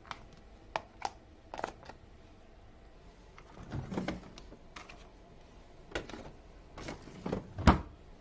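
Clicks and knocks of a plastic food container and a Sharp refrigerator's freezer drawer being handled: a few light clicks, a longer sliding, rubbing sound about four seconds in as the drawer is open, then knocks as things are set down in the freezer, the loudest knock near the end.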